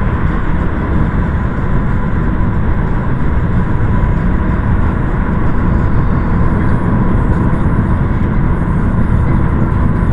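Steady low rumble of a car driving along, road and engine noise, with a thin steady whine over it.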